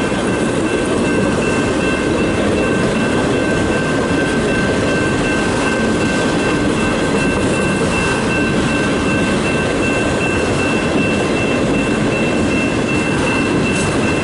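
Freight train of autorack and manifest cars rolling past: a steady rumble of wheels on rail, with a thin, steady high whine over it.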